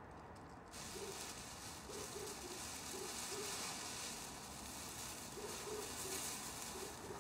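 Crackling, rustling hiss of a foil emergency blanket crinkling as the person wrapped in it shifts, starting suddenly about a second in and swelling and easing unevenly.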